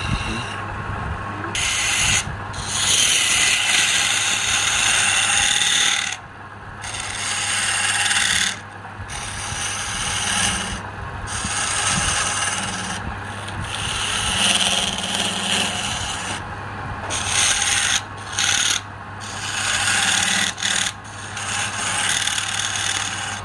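Tool scraping on wood spinning on a wood lathe, in repeated passes of one to a few seconds with short breaks, over a steady motor hum.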